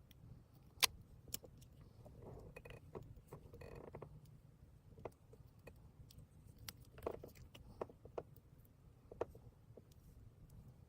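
Scattered small clicks and taps from hands handling things, the loudest about a second in, with two brief soft rustles a couple of seconds later, over a faint steady low hum.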